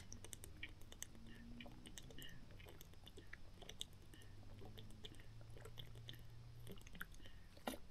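A man drinking from a plastic water jug: faint gulping and swallowing with small clicks of the mouth and bottle.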